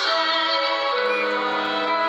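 Music playing, with held pitched notes that change about a second in.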